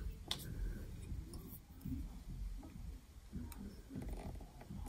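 Faint clicks and light handling as a small plastic ink sample vial is opened and a paintbrush is dipped into it: one sharper click just after the start, then a few soft ticks.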